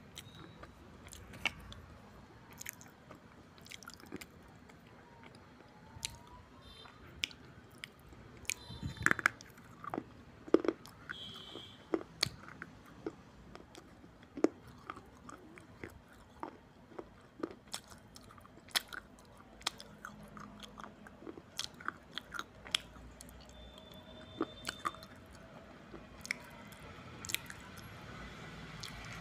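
Someone chewing and crunching dry red clay in the mouth, close to the microphone, with sharp irregular crunches and softer chewing between them.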